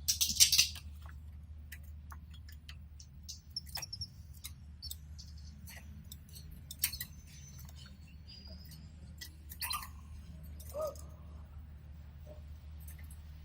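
Pet canaries moving about their cage and nest: a brief loud rustle at the start, then scattered light clicks and taps with a few short high chirps, over a steady low hum.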